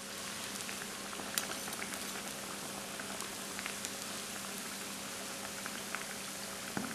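Vegetable cutlets deep-frying in hot oil: a steady bubbling sizzle with scattered small pops and crackles.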